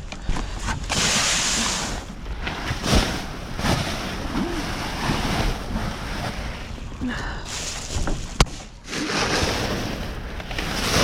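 Rustling and handling of bags and discarded items in a dumpster, with wind on the microphone, coming in uneven bursts of noise. A single sharp click about eight seconds in.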